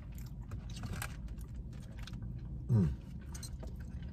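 Close-up eating sounds: chewing and small clicks of plastic forks and takeout containers over a low steady hum. About two and a half seconds in, a short hummed "mm" that falls in pitch is the loudest sound.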